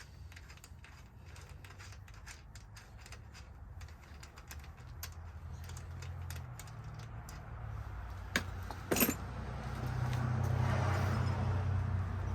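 Small metal tools and hardware being handled: light irregular clicks and rattles, with two sharper metallic knocks about two-thirds of the way through.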